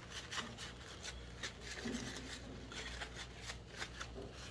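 Paper towel rustling and rubbing in quick, irregular strokes as old grease is wiped off a baitcasting reel's main gear.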